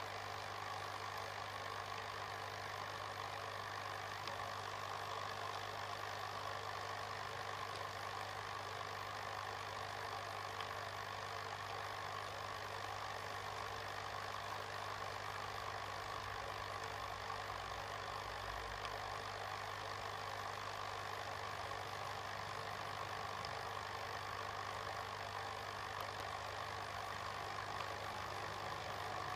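A steady low hum with a constant hiss, even throughout, from equipment running continuously.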